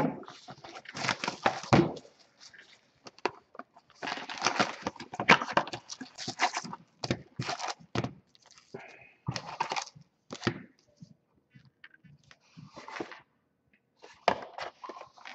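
Plastic shrink wrap crackling and tearing as a sealed trading card box is unwrapped, then the cardboard box opened and foil card packs rustling as they are pulled out and stacked, in irregular bursts.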